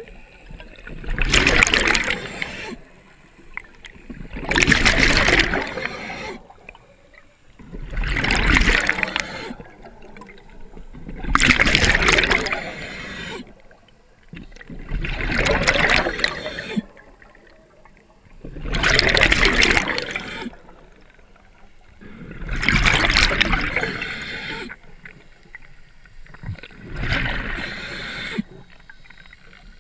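Scuba diver's breathing heard underwater: regular bursts of exhaled bubbles from the regulator, each lasting about a second and a half and coming about every four seconds, with quieter inhales in between.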